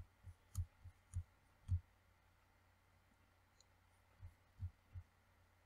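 Faint, soft thumps and clicks from a computer mouse being handled and clicked on a desk: about six in the first two seconds, then three more near the end.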